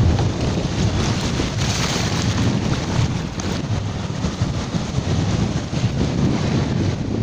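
Ocean surf washing on a beach, with wind rumbling on the microphone; a wave rushes in more loudly about two seconds in.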